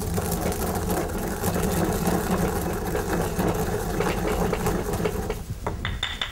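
Stone pestle grinding peppercorns in a heavy stone mortar: a steady gritty rubbing and crunching that stops about five seconds in. A brief high squeak follows near the end.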